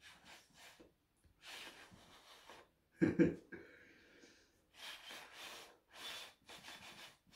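A person blowing several puffs of breath over a spoonful of hot chilli to cool it, with one short, louder knock about three seconds in.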